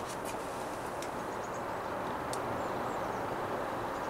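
Steady outdoor background noise, a low even rush, with a faint small click about two seconds in.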